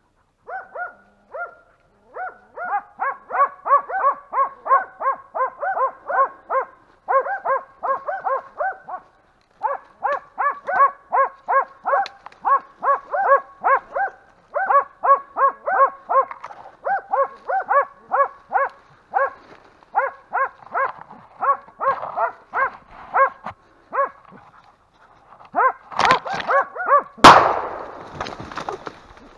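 Hunting dogs barking fast and rhythmically, about three barks a second, as they work a wild boar. Near the end the barking comes louder and a single gunshot cracks out with a ringing echo.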